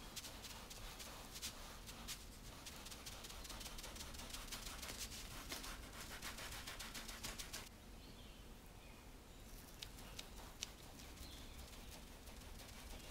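A kitchen knife scoring the crust of a baked sponge sheet on parchment paper: a faint run of quick clicks and scratches as the blade cuts shallow strips, with a pause of about two seconds past the middle.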